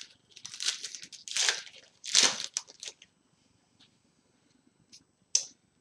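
Crinkling and rustling as a hockey card pack and its cards are handled: several noisy bursts in the first three seconds, then a couple of light clicks near the end.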